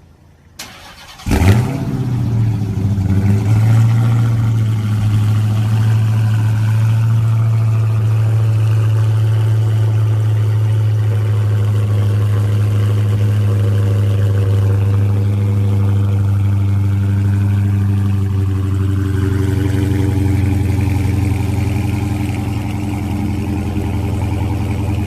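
Dodge Charger Hellcat's supercharged 6.2-litre HEMI V8 cold-started: a short crank, a loud flare as it fires, then a high idle that eases down into a steady, deep-toned idle, dropping slightly again near the end.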